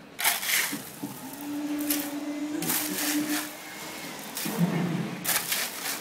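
Shovel scooping crushed stone, the gravel crunching and rattling in a few separate scoops. A steady low hum runs through the middle seconds.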